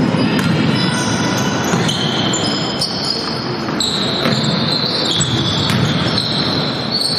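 Basketball game on a wooden gym floor: the ball bouncing as it is dribbled, players' running footsteps and high squeaks of their shoes, echoing in the large hall.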